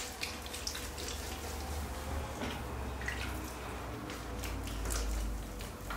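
Wet clay being centred by hand on a spinning potter's wheel: a steady low hum from the wheel under soft wet squelching, splashes and drips of water and slip. The hum swells a little about four to five seconds in.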